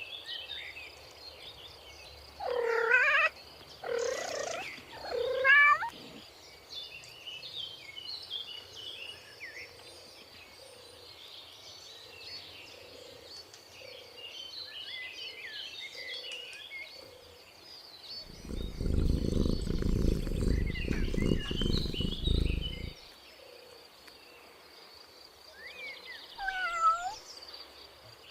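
Cat meowing three times a few seconds in, then purring for about five seconds, with one more falling meow near the end. Faint bird chirps throughout.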